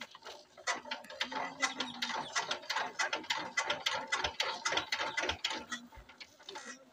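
Power tiller's single-cylinder diesel engine being turned over by hand: a fast, uneven run of mechanical clicks and rattles, several a second, that stops near the end without the engine running.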